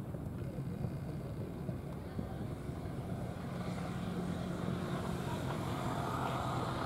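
Steady low drone of an engine running, growing a little louder in the second half.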